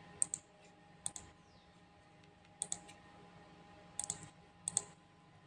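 Computer mouse button clicking five times at irregular spacing, each click a quick press-and-release pair of sharp snaps, over a faint steady hum.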